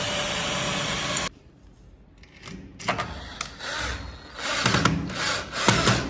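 Cordless drill running steadily while driving a screw into the profile, cutting off abruptly just over a second in. After a short quiet gap come irregular knocks and clatter of work on the door frame.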